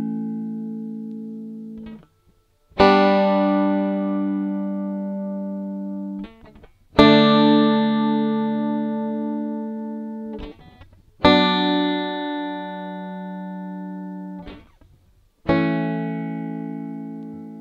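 Five-string resonator banjo strumming slow single chords, one about every four seconds. Each chord is left to ring and fade, then damped short just before the next one.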